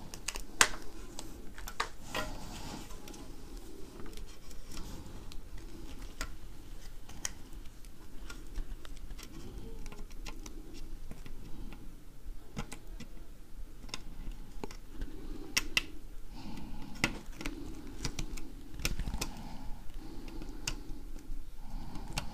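Scattered light clicks and taps of a small screwdriver and tiny screws working on a drone's plastic top shell as its GPS module is screwed down.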